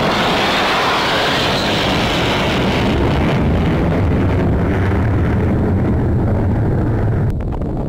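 Jet engine roar of an F-22 Raptor fighter that has just passed overhead. A loud rushing roar fades in its upper range over several seconds and leaves a deep rumble. The level drops suddenly just before the end.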